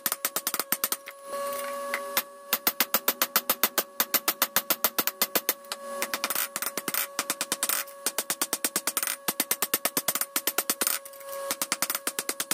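Hand hammer striking a hot steel knife blade on an anvil in quick, steady blows, about five a second, with the anvil ringing between them. The hammering breaks off briefly a few times.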